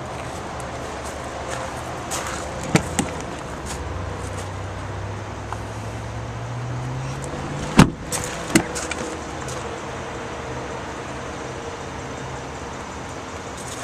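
Doors of a Chevrolet Colorado pickup being worked: a couple of latch clicks about three seconds in, then a door slamming shut about eight seconds in with another knock just after. A steady vehicle hum runs underneath, its low tone rising slowly in the seconds before the slam.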